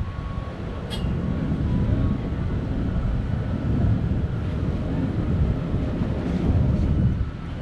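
Wind buffeting the microphone in a low, gusting rumble, with one short sharp click about a second in.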